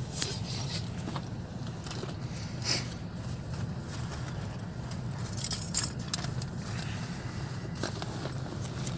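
Car engine idling with a steady low hum, heard from inside the cabin, with clothing rustle and a few sharp clicks as people handle things in their seats.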